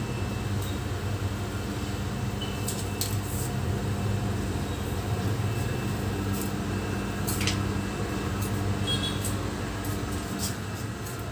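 Vacuum cleaner running steadily in the next room, a constant motor hum with a faint high whine. A few short clicks and scrapes sound over it.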